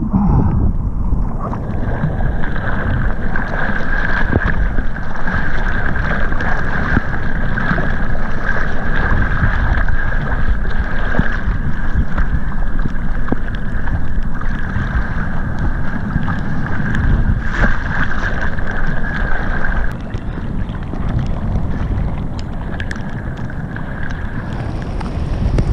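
Ocean water sloshing and splashing right at the microphone at surface level, with wind buffeting the microphone. A steady high whine runs through much of it and cuts out about twenty seconds in.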